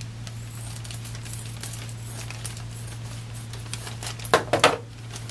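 Plastic packaging bag being handled, with faint rustling and then two loud crinkles close together near the end. A steady low hum runs underneath.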